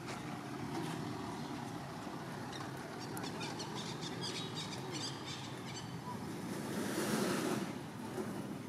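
Steady outdoor background noise like wind on the microphone, with faint high ticks in the middle and a louder swell of noise about seven seconds in.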